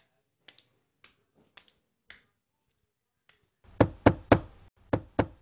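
Knocking: a few faint ticks, then two quick groups of three sharp knocks in the second half.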